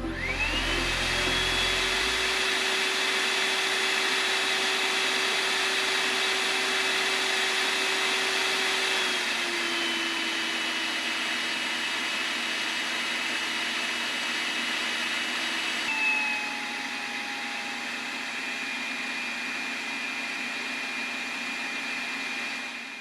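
XLERATOR hand dryer with HEPA filter blowing: the motor spins up quickly to a high whine over rushing air. About nine seconds in it steps down to a lower, quieter pitch, and about sixteen seconds in steps down again, running through its lower speed settings.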